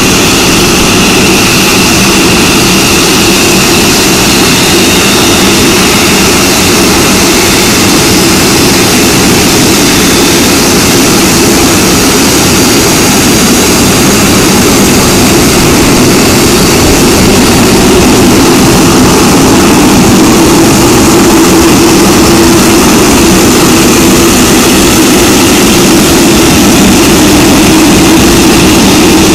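GEnx-2B turbofan engines of a Boeing 747-8F freighter running at taxi power as it rolls past: a loud, steady jet whine and rumble, growing slightly louder in the second half as the engines pass closest.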